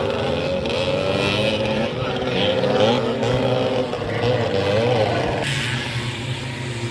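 Several small motocross motorcycles running on the track, their engines buzzing and revving, the pitch rising and falling with the throttle as they ride past. A little over five seconds in, the sound drops to a quieter, steadier engine note from further off.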